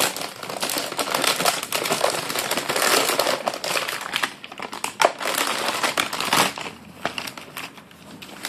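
Plastic anti-static bag crinkling and rustling as it is handled, dense for about the first four seconds, then a couple of sharp clicks and quieter rustling.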